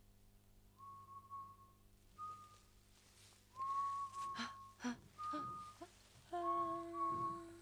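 Whistling of a slow tune in long held notes with short gaps between them. A few sharp clicks come in the middle, and near the end lower notes sound together with the whistled one.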